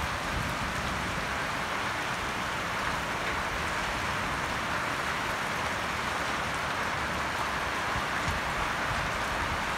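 Steady rain falling on a wet paved courtyard and garden plants, an even, unbroken hiss of drops.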